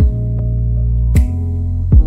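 Background music with sustained low notes and two sharp beats, one about a second in and one near the end.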